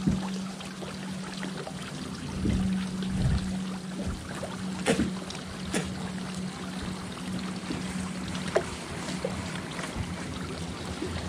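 A boat motor humming steadily at one low pitch, dropping out briefly a few times, with water lapping against the hull and a few light clicks and knocks.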